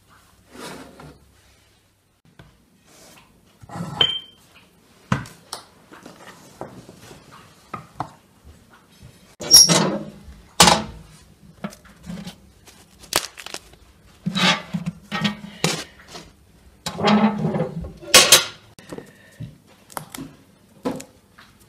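Kitchen clatter of metal cookware: an oven tray, pans and a stove's oven door clank and knock, with scraping in between. The sharpest clangs, some with a short metallic ring, come about ten seconds in and again near eighteen seconds.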